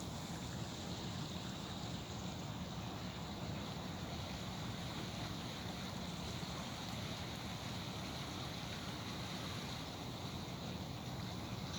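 Fast-flowing river current rushing steadily past a wooden dock, with a low rumble beneath the water noise.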